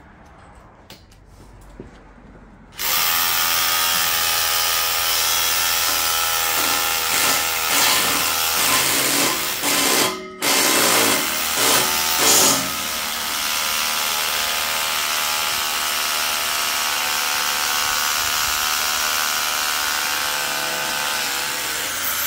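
Hammer drill boring into concrete. It starts about three seconds in and runs steadily, with a short stop near ten seconds and a few surges just after, then runs steady again.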